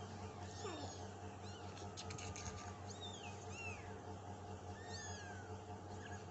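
Young kittens mewing repeatedly in thin, high-pitched calls, several in quick runs, over a steady low hum.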